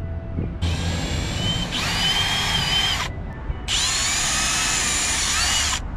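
Power drill with a small 1/16-inch bit drilling two pilot holes: two runs of about two and a half and two seconds with a short pause between. The motor whine wavers up and down as the bit cuts.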